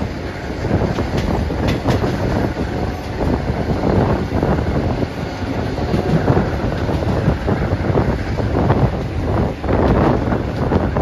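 Passenger train carriage running along the track, heard from aboard: a steady rumble of wheels on rails with a few clicks, and wind buffeting the microphone.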